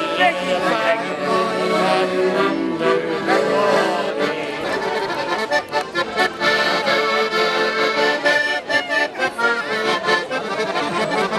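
Piano accordion playing a tune in held chords.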